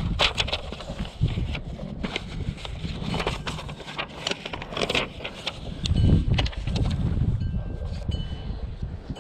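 Paper log sheet rustling and crackling as it is handled and flapped, over wind buffeting the microphone.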